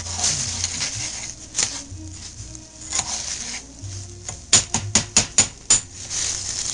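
Dry rice sizzling in hot oil in a small metal pot as it is stirred and scraped with a metal spoon to toast it. Near the end the spoon taps sharply against the pot about six times in quick succession.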